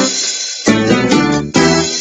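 Keyboard music with a piano-like sound: a held chord fading, then two more chords struck about a second apart, each left to ring and die away.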